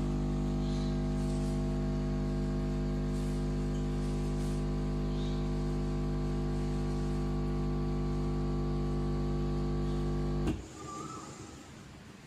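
Nespresso capsule machine's pump running with a steady, even hum as espresso pours out of the spout. It stops suddenly about ten and a half seconds in with a click, marking the end of the brew.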